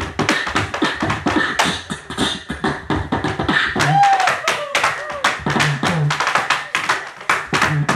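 Live beatboxing through a microphone: a fast rhythm of vocal kicks, clicks and snares, with a short gliding vocal whistle about four seconds in. Tap-dance steps on a floor board sound along with it.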